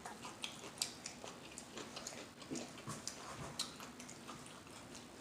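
Close-miked chewing with wet lip smacking: faint, irregular mouth clicks and smacks as a mouthful of food is eaten.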